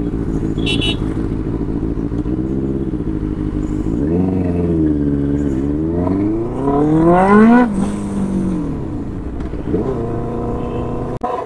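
Benelli 600i's inline-four engine heard from the rider's seat, running steadily at low speed, then revving up twice. The second rev is a long rising climb of about two seconds that falls away sharply about eight seconds in, before the engine settles back to a steady lower run.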